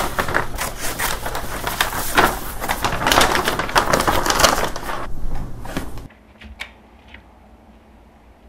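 Scissors cutting through a brown paper bag, the stiff paper crackling and rustling with many sharp crunches of the blades. About six seconds in it stops abruptly, leaving only a few faint taps and rustles of paper being handled.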